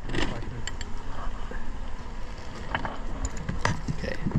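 Scattered light clicks and scrapes of a metal hive tool working against wood and honeycomb as comb is cut from the hive cavity.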